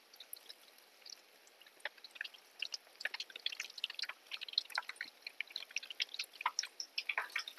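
Oil sizzling and crackling as a batch of small donuts deep-fries in a pot: a dense patter of tiny pops that grows busier from about three seconds in.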